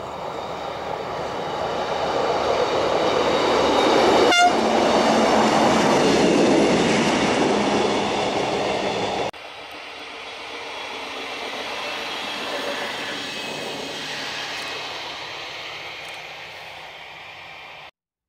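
Yellow track maintenance vehicle running along the rails, its engine and wheel noise growing louder as it approaches, with a sharp click about four seconds in. After an abrupt drop about halfway, a quieter rail rumble swells and fades, then the sound cuts off just before the end.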